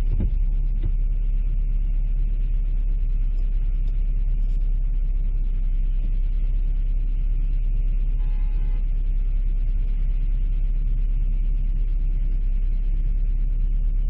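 Car driving, with a steady low rumble of road and engine noise. A short high tone sounds briefly about eight seconds in.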